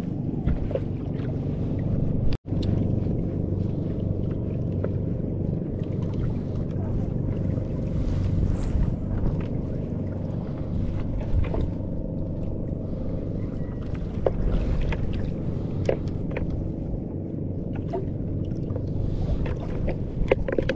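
Steady low rumble on board a small outrigger fishing boat, with a faint hum and a few light knocks and clicks. The sound cuts out for an instant about two seconds in.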